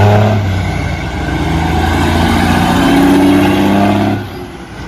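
Heavy truck engine running, a loud, deep, steady note that drops away about four seconds in, leaving a quieter noise.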